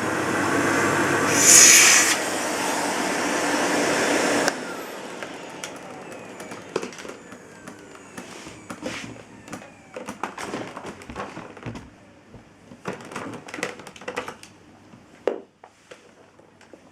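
Miele S256i canister vacuum cleaner running with a steady rush of suction, louder for a moment about a second and a half in. It is switched off about four and a half seconds in, and its motor whine falls as it spins down. Scattered clicks and knocks of plastic parts being handled follow.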